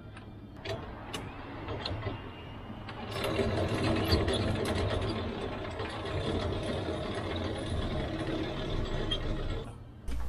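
Hand-operated boat trailer winch clattering with a fast run of ratchet clicks as its line is pulled out to raise the mast. It starts about three seconds in and cuts off just before the end, after a few scattered knocks of handling.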